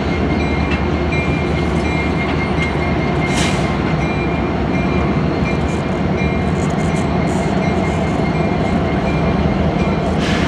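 Diesel-electric freight locomotives running as the consist rolls slowly past, a steady low engine rumble. Two short hisses of air cut in, about three seconds in and again at the end.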